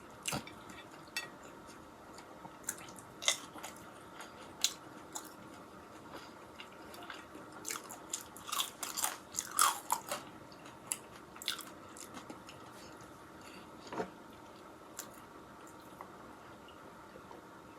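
Close-up mouth sounds of a person chewing and biting into a homemade bacon cheeseburger: irregular wet clicks and crunches, busiest about halfway through.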